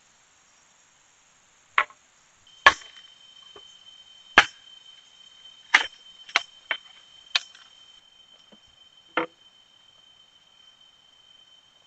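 Blade chopping into wood, about eight sharp, irregularly spaced chops with a few lighter taps between them.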